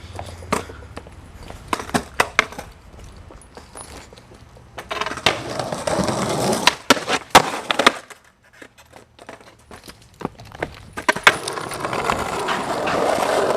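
Skateboard: sharp clacks and knocks of the board throughout, with wheels rolling on pavement in two stretches, about five seconds in and again near the end.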